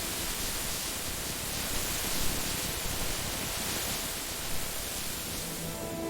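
Steady rain, an even hiss with no separate drops or rhythm; faint music tones come back near the end.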